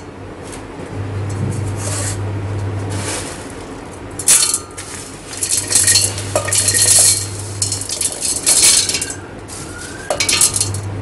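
Dry roasted sago pearls and nuts poured and pushed off a steel plate into a stainless-steel mixer-grinder jar, rattling and clinking against the steel in several short bursts.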